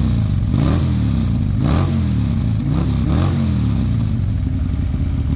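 Buell M2 Cyclone's Harley-derived air-cooled V-twin running through an aftermarket performance exhaust, revved up and back down several times in quick succession, then settling to a steady idle near the end.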